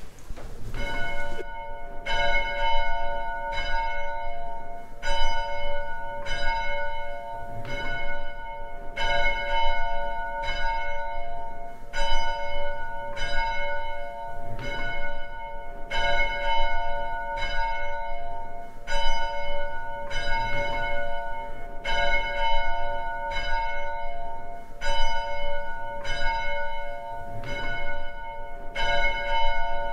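Church bell ringing steadily, struck about once a second with the same notes ringing on after each stroke.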